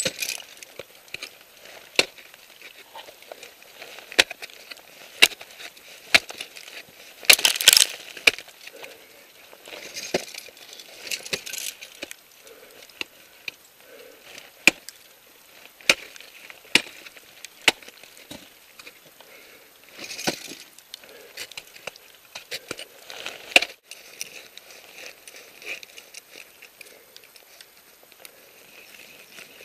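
Ice axe and crampons striking the ice of a frozen waterfall: irregular sharp strikes and chinks, with a loud cluster of blows about a quarter of the way in.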